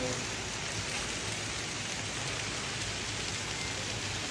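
Heavy hail and rain pelting down in a steady, dense patter.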